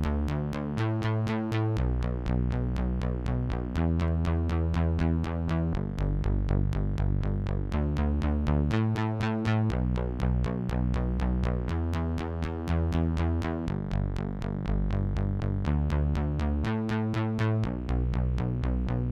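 Isolated bassline track of a synth-pop song: repeated pulsing bass notes about four a second, the pitch changing every second or two in a pattern that repeats about every eight seconds.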